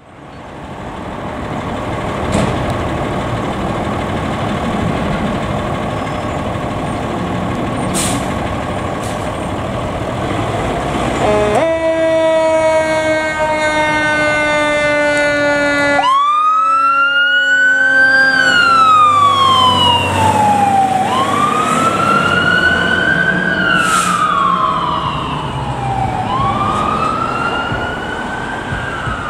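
Fire engine pulling out with its diesel engine running and a few sharp clicks. About a third of the way in its siren starts, first as a slowly falling tone. It then rises and falls in long sweeps, each taking about five seconds.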